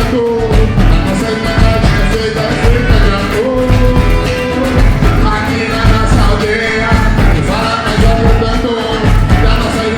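Live carnival bloco band playing: heavy drums keep a steady beat under a held melody line from voices or instruments.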